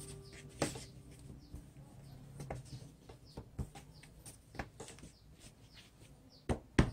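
Quiet, scattered taps and clicks of a donut cutter and hands working dough on a floured metal baking tray, with the two sharpest knocks near the end. Faint short high chirps come and go in the background.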